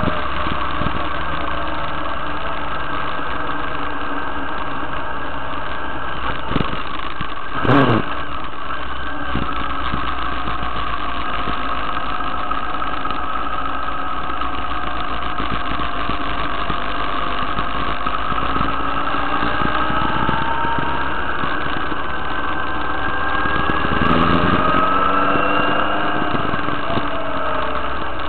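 Motorcycle engine running steadily while riding, its note rising twice as it speeds up, about nineteen and twenty-four seconds in. There is a short sharp knock about eight seconds in.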